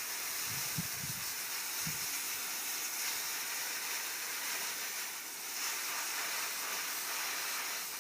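Water hose spraying a steady hissing jet onto a window air conditioner's filter, rinsing the dirt off it.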